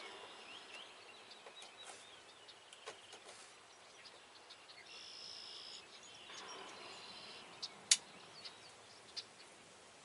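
Quiet open-field ambience with faint bird chirps and an insect-like buzz, and a single sharp click near the end.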